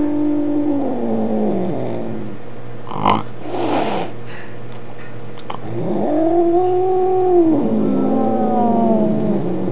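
Maine Coon cat caterwauling: a long drawn-out yowl that falls away in the first two seconds, a short sharp noisy burst around three seconds in, then a second long yowl from about six seconds in that rises, holds and slides down. The yowling is an agitated cat's complaint at a strange kitten in its home.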